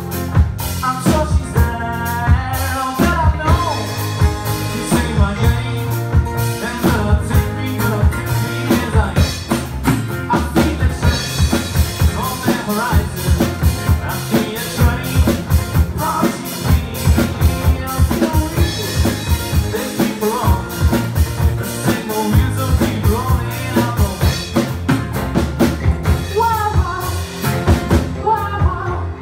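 Live rock band music: a drum kit keeping a steady beat under electric and acoustic guitars and bass.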